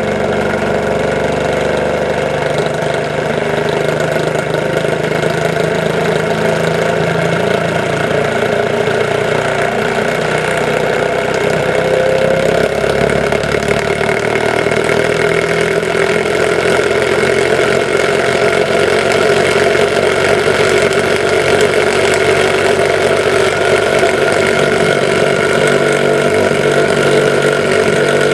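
Small homemade pulse motor running: its magnet rotor spins between two electromagnetic drive coils at about 2,900 rpm. It makes a continuous mechanical hum with several steady tones, growing slightly louder over the stretch.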